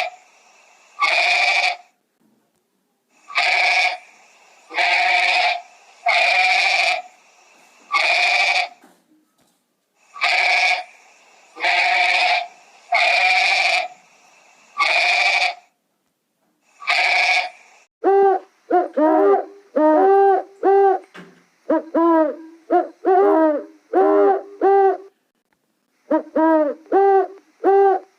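Animal calls: a string of harsh, bleat-like cries, each under a second long and coming about every second and a half. About two-thirds of the way through they give way to a faster run of short pitched hoots, each arching up and down in pitch.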